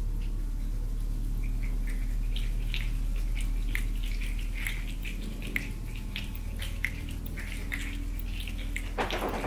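An audience making a rainstorm with their hands: irregular finger snaps and claps scattered like raindrops. Near the end a loud, dense swell of noise for the thunder begins and grows.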